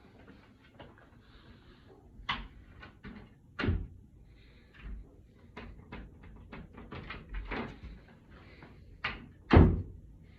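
Door handling: a run of small clicks and knocks, with two louder knocks a little under four seconds in and again near the end.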